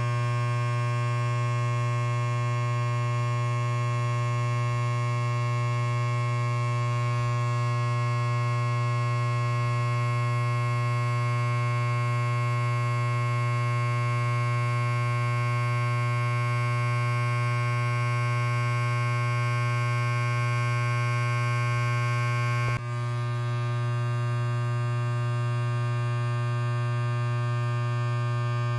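Electric hair clipper running with nothing being cut: a steady, even buzz. There is one brief dip in level about twenty-three seconds in.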